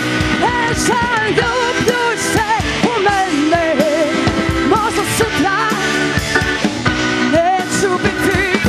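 Live rock band playing a song on drum kit, bass guitar, electric guitar and Roland keyboard, with a wavering melody line over steady drums.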